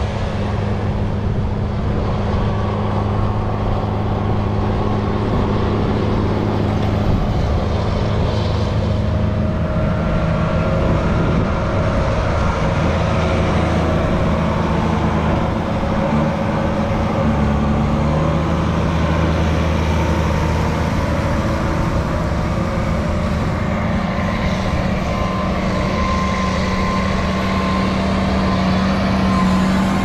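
Big diesel farm tractors running under load as they push and pack a corn silage pile: a steady, heavy engine drone whose pitch shifts about halfway through as an engine changes speed.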